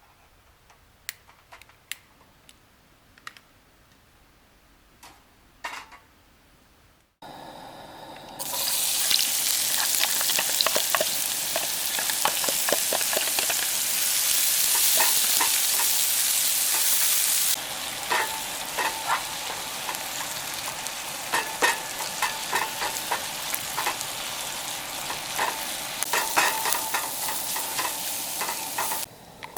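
Shiitake mushrooms and red peppers frying in a pan, a loud sizzle with small clicks of stirring, starting about seven seconds in. Before it, a few faint ticks and clicks over quiet.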